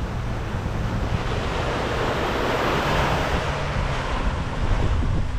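Small waves washing onto a sandy beach, one swelling louder about two to three seconds in, with wind rumbling on the microphone.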